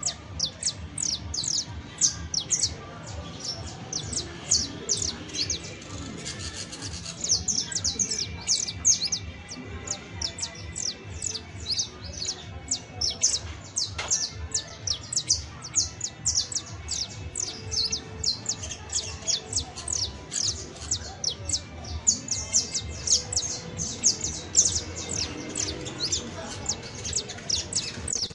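Saffron finch singing: a long, unbroken run of quick, high, downward-slurred chirps, several a second.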